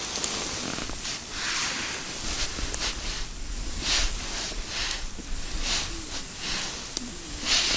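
Wind on the microphone, a steady low rumble and hiss, with soft rustling swishes every second or so.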